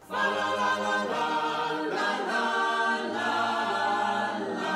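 Background music: a choir singing held chords that change every second or so.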